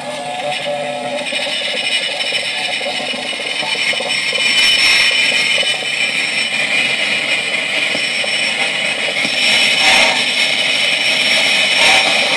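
Fender Hot Rod DeVille 212 tube guitar amplifier making a loud crackling noise, a dense hiss and crackle that slowly grows louder. The crackle came from failing tubes: three new tubes cured it.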